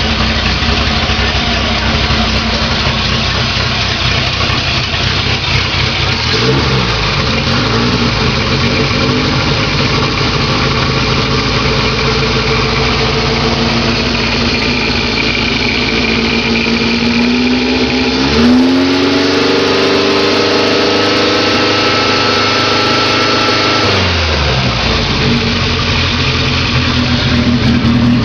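Naturally aspirated VW Gol engine breathing through a 4-into-1 exhaust header, running loud at idle. It gets a short blip about six seconds in, then is revved up near the end and held at higher revs for about five seconds before dropping back to idle.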